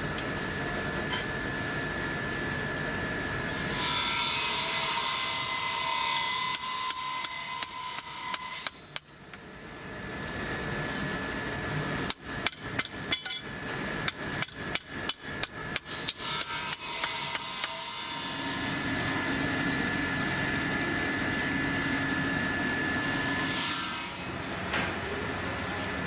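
Hammer blows on a steel knife blank in two quick runs of about three strikes a second, with a steady machine noise holding a fixed tone before, between and after the runs.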